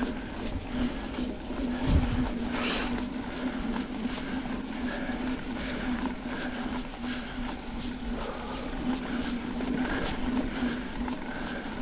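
Mountain bike ridden along a dirt trail: tyres running over the ground with a steady low hum, many short knocks and rattles from bumps, and a heavier thump about two seconds in.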